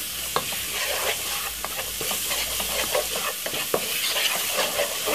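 Onion, garlic and spring onion sizzling in oil in a frying pan, with a spoon giving scattered light clicks and scrapes against the pan as the mixture is stirred.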